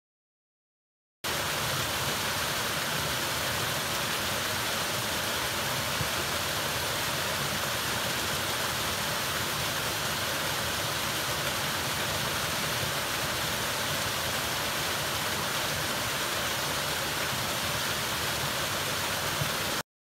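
Steady rushing water of a waterfall, an even noise with no breaks, starting abruptly about a second in and cutting off abruptly just before the end.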